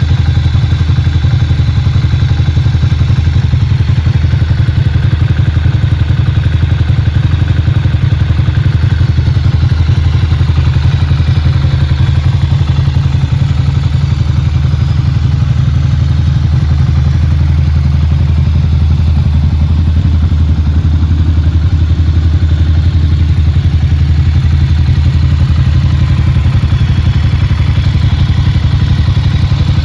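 Ducati Monster 695's air-cooled L-twin engine idling steadily and loudly through a GPR aftermarket exhaust with the dB killer removed.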